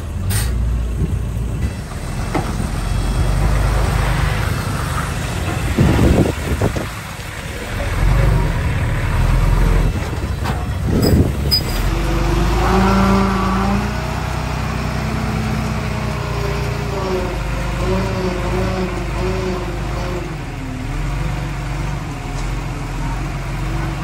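Heavy diesel earthmoving machinery working, with a deep engine rumble throughout. There are two loud clanking bursts about 6 and 11 seconds in. From about halfway, a steadier engine note with a slightly wavering pitch comes in.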